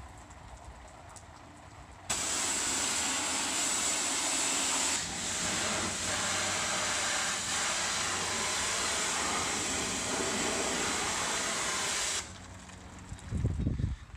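Pressure washer spray blasting the bottom of a sailboat's hull: a loud, steady hiss of high-pressure water. It breaks off about two seconds at the start and again about two seconds before the end, where wind gusts on the microphone.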